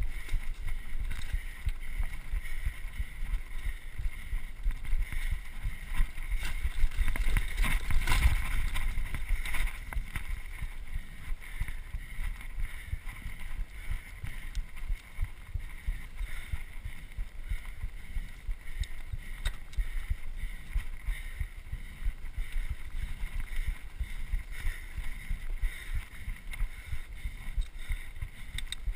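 Mountain bike riding over a dirt singletrack: wind rushing over the microphone and the tyres' rumble, with frequent small knocks and rattles from the bike over bumps in the trail, loudest about eight seconds in.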